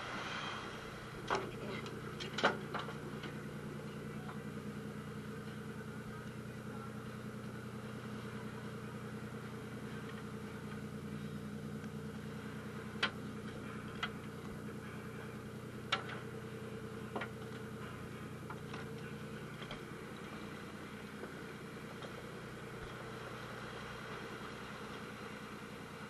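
Fishing boat's engine running at a steady hum, with a handful of sharp knocks and clicks scattered through it; the loudest comes about two and a half seconds in.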